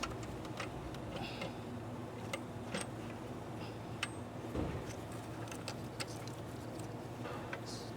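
Scattered light clicks and taps, with one duller knock about halfway through, as the intake manifold of a 3.0 L V6 is handled and worked loose, over a steady low hum.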